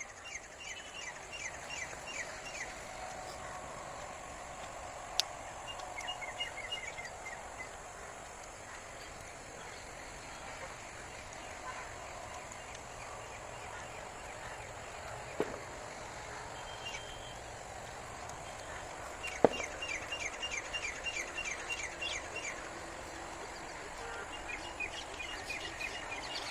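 Steady background ambience with several runs of rapid, evenly repeated chirps, typical of birds calling. Three sharp clicks stand out, the loudest about two-thirds of the way through.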